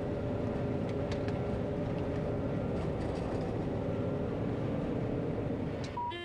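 John Deere 9500 combine running steadily with its threshing cylinder engaged, a constant engine and separator drone with a few steady tones through it. About six seconds in the drone drops away and a brief steady beep sounds.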